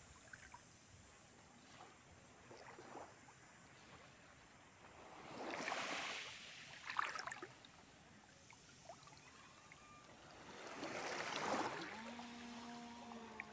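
Small waves lapping at the water's edge, a soft wash that swells twice, with a short sharp tick between the swells. Near the end a steady low hum with several tones sets in.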